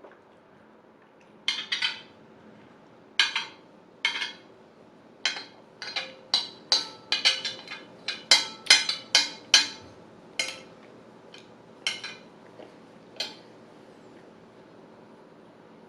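Cutlery clinking and scraping against a plate while eating: a run of sharp, ringing strikes, a few at first, then coming quickly in the middle before thinning out.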